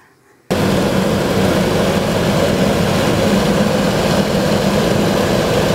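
Recorded noise of a container ship played back over loudspeakers: a dense, steady, low- and mid-pitched noise with a hum underneath. It starts abruptly about half a second in. It is an example of the chronic shipping noise that vessels put into the sea.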